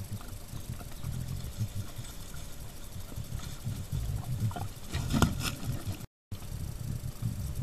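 Collared peccaries foraging right at the trail camera, a steady irregular low rumble of movement and chewing close to the microphone, with a short sharper call or crack about five seconds in. The sound drops out for a moment near the end.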